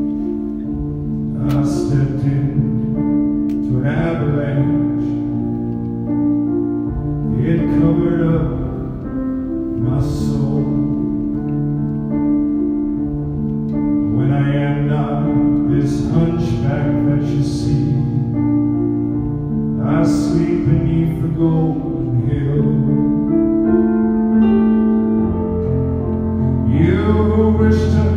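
Live piano and a man's singing voice: slow sustained piano chords, with sung phrases coming every couple of seconds over them.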